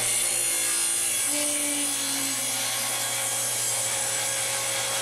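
Table saw running steadily as a board is pushed through the blade on a crosscut sled.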